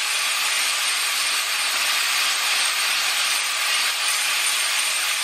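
Angle grinder with a flap disc grinding down weld seams on a sheet-metal box corner, a steady continuous grind, smoothing the welds back to a clean right angle.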